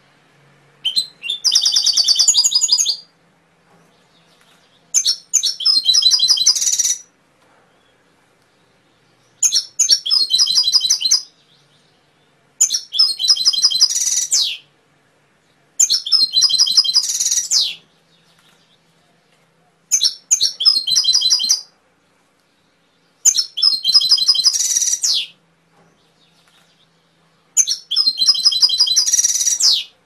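Domestic canary singing: eight phrases of rapid, high trills, each about two seconds long, separated by pauses of a second or two.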